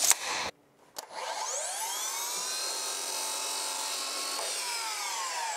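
Sliding compound miter saw motor winding up with a rising whine, running steadily while the blade cuts through a length of pencil moulding, then winding down with a falling whine near the end.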